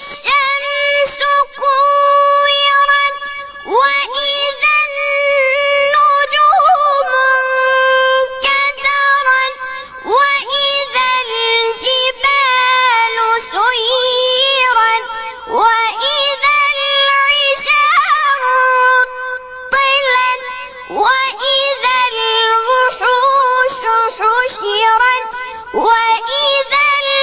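A high-pitched, childlike voice chanting Quran recitation in the melodic tajwid style. It holds long notes with ornamented turns and bends, broken by short breaths.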